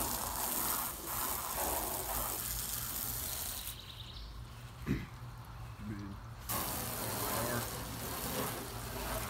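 Garden hose spraying water onto a car's body and windshield: a steady hiss that drops away for a couple of seconds around the middle and then comes back.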